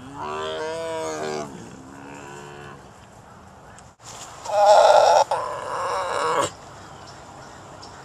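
Tiger vocalising as it yawns: a drawn-out pitched call lasting about a second and a half, with a fainter, shorter one after it, then a louder, rougher call of about two seconds starting halfway through.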